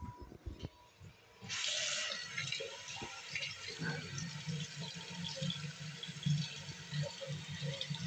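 Bathroom sink faucet turned on about a second and a half in, water running steadily into the basin and over a hand held under the spout, after a few faint handling knocks.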